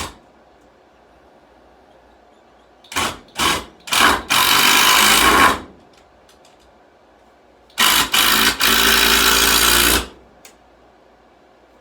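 Impact drill driving wood screws into 2x4 lumber, twice. Each screw starts with a few short trigger pulls and then runs steadily for about two seconds.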